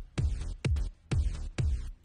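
Electronic dance music with a steady kick drum beat, about two beats a second.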